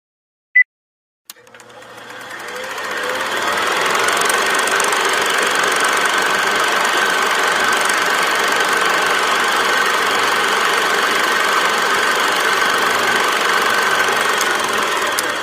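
A short high beep, then a steady machine-like running noise with a constant whine that swells in over a couple of seconds, holds steady, and fades away near the end.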